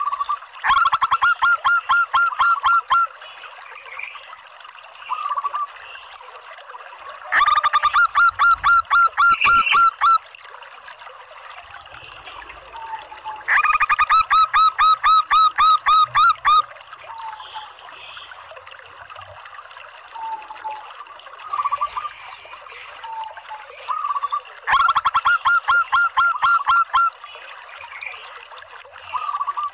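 Female zebra dove (perkutut) calling in four loud bursts of rapid, evenly repeated notes, each two to three seconds long, with fainter short calls between the bursts.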